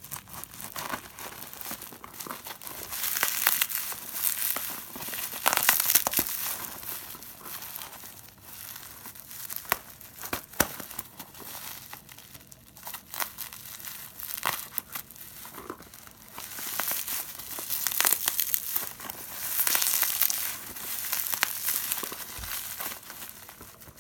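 Plastic packaging crinkling and tearing by hand in irregular rustles and crackles, as a phone package is unwrapped.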